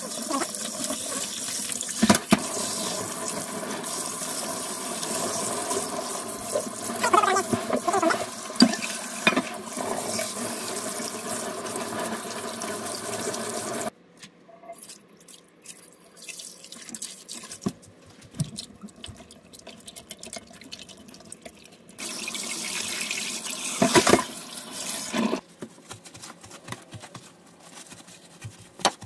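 Tap water running onto a raw whole chicken in a stainless-steel sink as hands rub and wash it, with a few knocks; the water stops suddenly about halfway. After some quiet handling, a similar rushing sound returns for a few seconds near the end.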